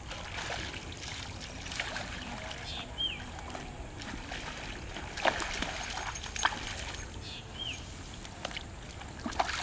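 Open-air ambience: a bird gives a short, falling whistled note twice, about four and a half seconds apart, over a steady low rumble, with a few sharp clicks in between.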